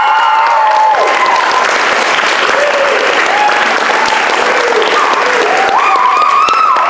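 Audience applauding loudly and steadily, with people whooping and cheering over the clapping, most strongly at the start and again near the end.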